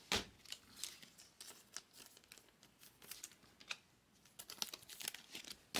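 2021 Bowman Draft trading cards handled by hand, flipped and slid against one another: faint, irregular clicks and rustles, with a quick run of them near the end.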